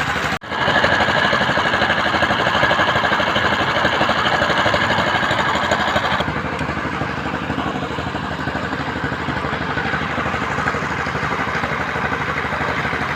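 An engine running steadily at a fast even beat, with a brief break about half a second in and a slight change in tone around six seconds in.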